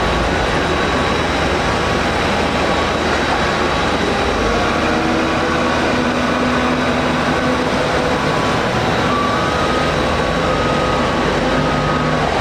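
Passenger jet on its takeoff run: a loud, steady rush of engine and rolling noise with faint whining tones that drift slightly in pitch.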